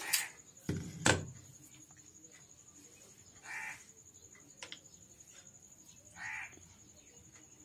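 A few sharp metal knocks in the first second or so as steering-rack parts are handled on a concrete floor, then a crow cawing twice, about three seconds apart.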